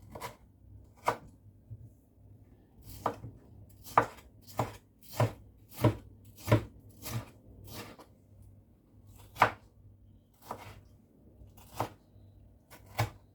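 Knife chopping tomatoes on a cutting board: single sharp strokes about every half second to a second, with a longer pause in the middle.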